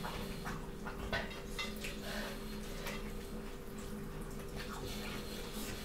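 Close-miked eating: wet chewing and lip smacks with small sharp clicks scattered throughout, over a faint steady hum.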